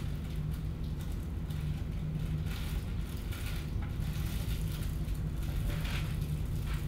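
Steady low hum of room noise with a held low tone, overlaid with faint, irregular rustling and scratching.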